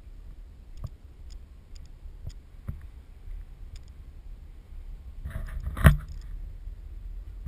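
Walking footsteps and handling ticks from a handheld ski-pole camera mount, over a low rumble of handling noise, then a loud rattling clatter a little before six seconds in.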